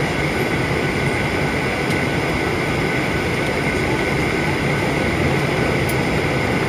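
Steady cabin noise of a Ryanair Boeing 737-800 in flight, heard from a window seat beside the wing: the even roar of its CFM56 turbofan engine and the rush of air, with a steady high whine running through it.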